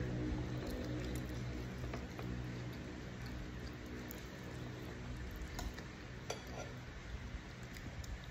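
Eating by hand from a ceramic plate: fingers pressing and mixing rice and sweet and sour chicken, a few light clicks against the plate, and chewing. A steady low hum sits underneath and fades out about two-thirds of the way through.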